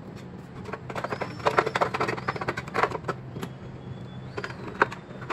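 Stainless-steel side cover of a meat slicer being fitted back onto the housing: clusters of metal clattering and rattling, then a screwdriver driving in a fixing screw with a few sharp clicks, the sharpest near the end. A steady low hum runs underneath.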